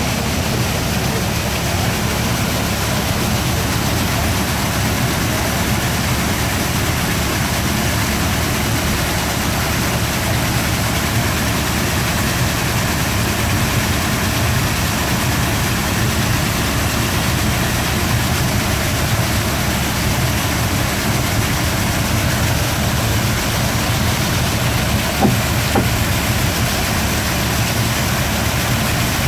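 Water pouring from the millrace chute onto the turning horizontal water wheel (kvernkall) of a small Norwegian watermill: a loud, steady rush of falling water over a low rumble. There is one brief knock near the end.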